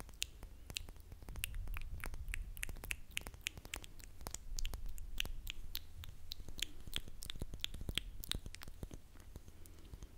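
Makeup brush and fingertips rubbing and scratching the foam windscreen of a microphone held close: a dense run of crisp clicks and crackles, several a second, over a low rumble.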